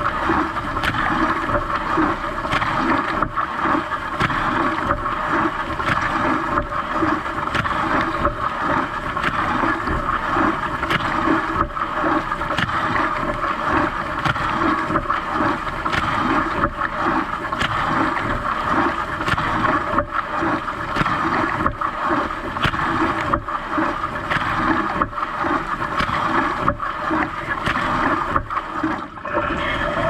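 Siemens dishwasher mid wash cycle, heard from inside the tub: a steady rush of water jets spraying and splashing over the dishes and the camera housing.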